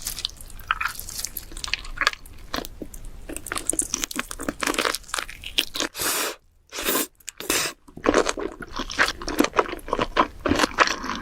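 A person biting and chewing crunchy food, a dense, irregular crunching and crackling. The sound stops dead twice for a moment a little past the middle.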